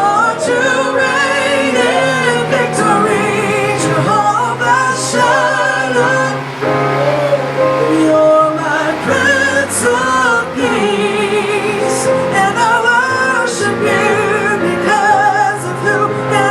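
Congregational worship music: singing that holds notes with vibrato over an instrumental accompaniment with sustained bass notes.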